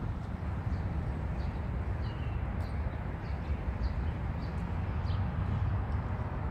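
Outdoor ambience of small birds chirping, with scattered short high chirps, over a steady low rumble.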